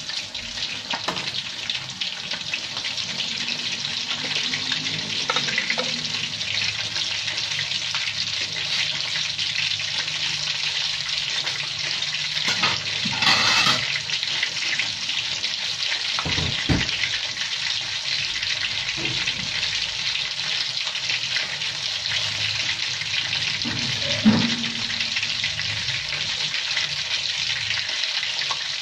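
Thin coated chicken fillet slices frying in hot oil: a steady sizzle, with a few brief knocks.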